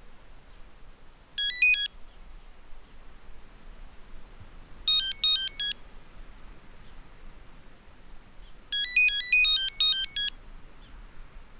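Mobile phone ringtone: a quick melody of stepping electronic beeps, playing in three separate phrases a few seconds apart, the last the longest.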